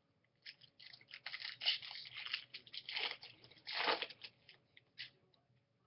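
Trading-card pack wrapper crinkling as it is handled, a dense crackle lasting about four and a half seconds with louder swells near three and four seconds in.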